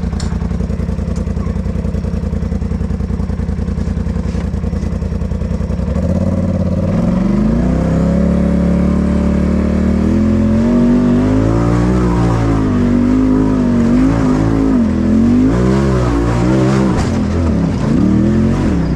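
Polaris RZR side-by-side engine, heard from the driver's seat, idles steadily for about six seconds. It then revs up and down over and over as the throttle is worked climbing a rutted dirt trail.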